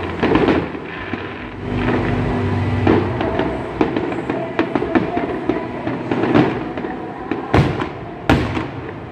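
Aerial fireworks shells bursting in a steady string of bangs and crackles, with the two loudest reports near the end.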